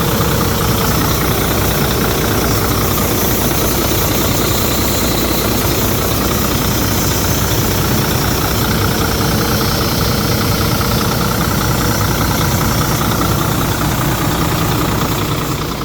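Volvo D13 inline-six diesel truck engine idling steadily while it warms up after reassembly. The sound cuts off abruptly at the very end.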